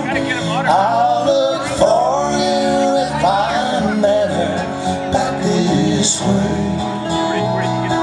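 Live country-folk band music: a strummed acoustic guitar with electric bass and a second guitar, under a man singing drawn-out, wavering notes in the first half.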